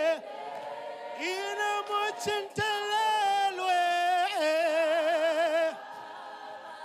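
Worship singers singing a slow refrain a cappella, with long held notes in several voices. The singing drops away to a softer hum near the end.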